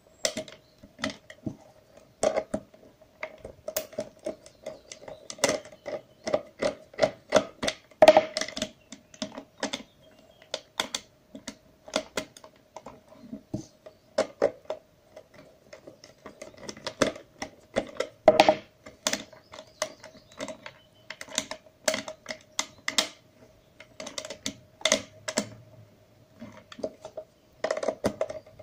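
Screwdriver turning a small screw out of a deep screw well in a plastic controller case: irregular sharp clicks and scrapes of the tip in the screw head, often in quick runs, with the loudest clicks about eight and eighteen seconds in. A faint steady hum runs underneath.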